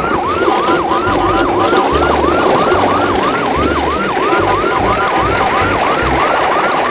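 A siren sounding in a fast yelp, its pitch rising and falling about three times a second without a break, with low thuds underneath.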